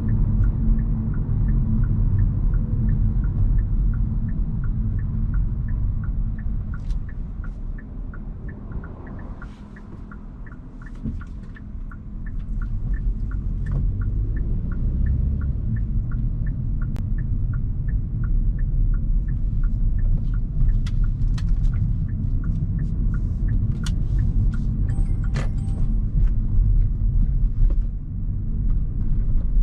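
Hyundai Kona Hybrid driving: a steady low road and drivetrain rumble that eases off about nine seconds in and builds again around twelve seconds. A regular ticking, about two a second, runs through most of it and stops near the end.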